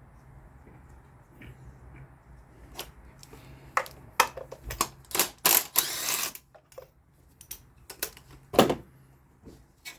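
Ratchet and socket clicking with metal tool knocks while a spark plug is worked out of the cylinder head. The clicks are irregular, with a quick run of clicking midway and one louder knock near the end.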